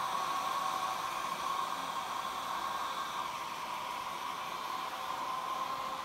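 Handheld hair dryer running steadily: a constant rush of blown air with a steady hum.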